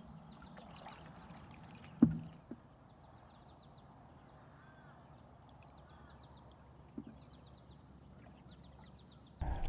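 Wood-canvas canoe being paddled quietly on calm water, with a sharp knock about two seconds in and a lighter one about seven seconds in. Faint high chirps come in quick runs in the background.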